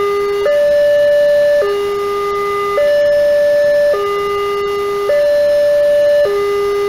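Wantech railway level-crossing alarm sounding its two-tone warning, stepping between a low and a high tone about once a second. It signals that the barrier is down and a train is approaching.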